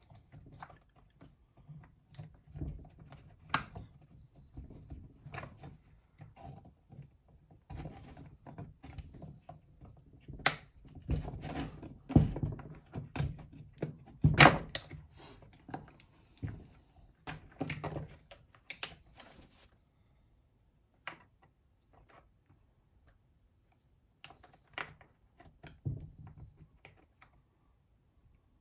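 Irregular clicks, knocks and thunks of plastic and metal parts being handled and taken off a Partner 350 chainsaw to get at its Walbro carburetor. The two sharpest knocks come about a third and about halfway through. The last third is mostly still, with a few light clicks.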